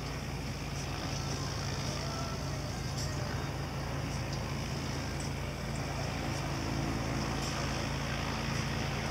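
Piper PA-32R single-engine piston airplane taxiing at low power: a steady engine and propeller hum that grows slightly louder about six seconds in.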